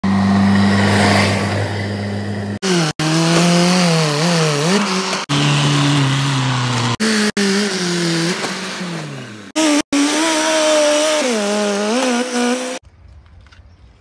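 A rapid string of short clips of heavy diesel engines revving, from a JCB 3DX backhoe loader and a Mahindra tractor working under load, their pitch rising and falling, each clip cut off abruptly by the next. Near the end it drops to a faint quiet.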